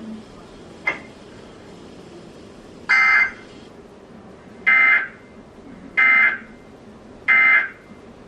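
Emergency Alert System digital data bursts: four short, loud electronic screeches about 1.3 seconds apart, preceded by two sharp clicks in the first second.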